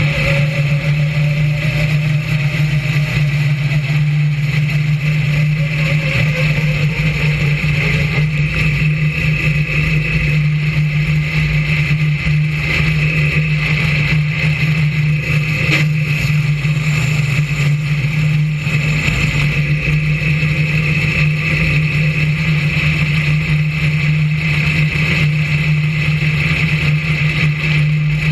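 BriSCA F1 stock car's V8 engine running, heard from on board the car, a loud steady drone that stays at much the same revs throughout.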